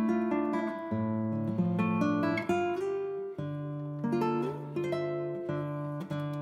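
Acoustic guitar music, with plucked notes and strummed chords following one another at an even pace.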